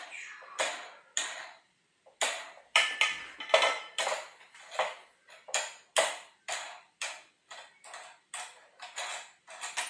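Sharp metallic clicks, about two a second, as a screw knob with a washer is turned on the top of a metal backdrop stand. A couple of clicks come at the start, then a short pause, then a steady run of clicks.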